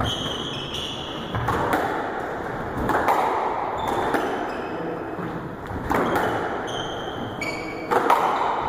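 Squash rally: the ball smacking off rackets and the court walls in sharp, echoing hits, some of them in quick pairs, with rubber-soled shoes squeaking briefly on the wooden floor between shots.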